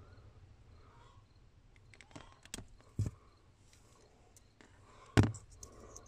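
Hand wire stripper working on a thin blue wire: a few sharp clicks and snaps as the jaws close and the insulation pulls off, the loudest about five seconds in.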